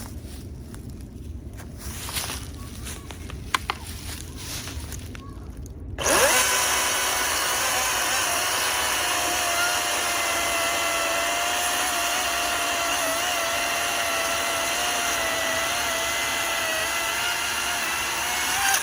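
DeWalt 20-volt battery chainsaw cutting through a log. Its electric motor and chain start suddenly about six seconds in, run at a steady whining pitch for about thirteen seconds, and stop abruptly. Before it there is only quiet handling noise with a single click.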